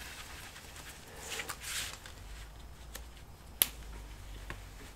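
Gloved hands handling a laptop keyboard and fitting its ribbon cables into their board connectors: a brief rustle, then one sharp click about three and a half seconds in, with a couple of fainter clicks either side.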